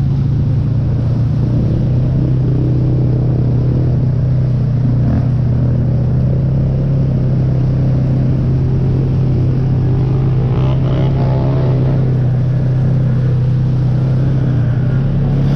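ATV engine running steadily at a constant pitch, a loud even hum with no revving or let-off.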